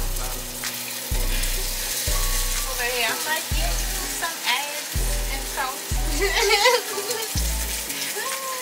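Food sizzling in a frying pan, a steady hiss throughout, while sausage and eggs cook. Under it runs music with a deep bass note about once a second and a singing voice.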